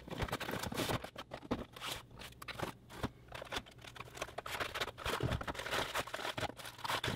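Unboxing noises: a cardboard box and its inner tray being opened and handled, with scissors snipping packaging, in an irregular run of clicks, scrapes and rustles.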